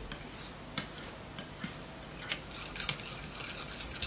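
Scattered light clicks and clinks of utensils and dishes being handled at a table, irregular, with a few sharper taps spread through.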